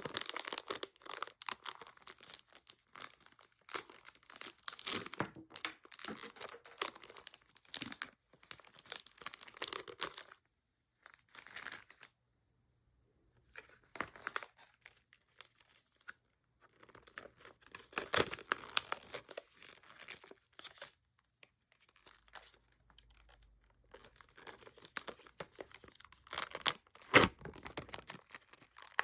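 Candy wrappers and packaging being torn open and crinkled by hand in irregular bursts, with a pause near the middle and a single sharp snap near the end.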